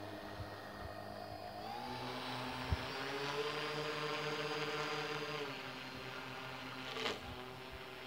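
The small motor and propeller of a homemade RC bottle boat whining as it runs. The pitch rises a little under two seconds in as it speeds up, holds steady, then falls back shortly after five seconds. There is a short sharp click near the end.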